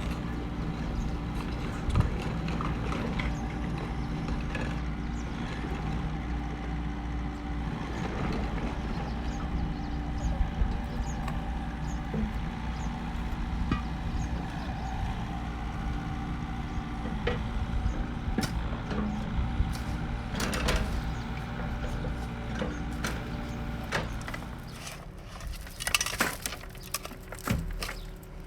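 Heavy construction machinery engine running steadily, with scattered knocks and clanks. About 24 seconds in the engine sound drops away, and a run of sharp knocks follows near the end.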